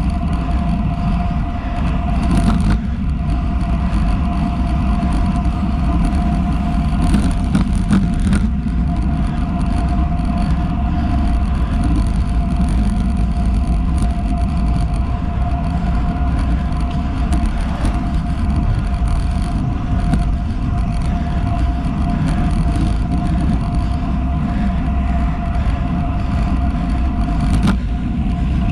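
Wind rushing over a GoPro HERO 7 Black's microphone and road-bike tyres rolling on asphalt on a descent at about 37 km/h, on Roval Rapide CLX 50 carbon wheels. A steady high hum runs under the rush.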